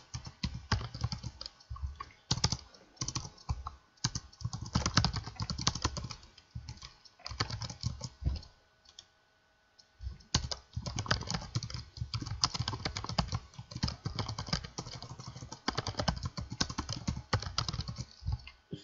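Typing on a computer keyboard: fast runs of keystrokes, with a pause of about a second and a half around the middle.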